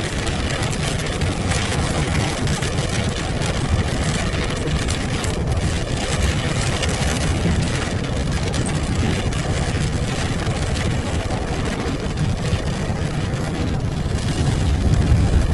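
Car driving, heard from inside the cabin: a steady mix of engine and road noise that grows slightly louder near the end.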